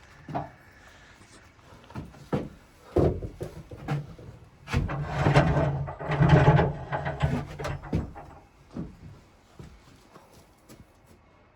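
Irregular wooden knocks and clunks, with a louder scraping, rubbing stretch from about five to seven and a half seconds in.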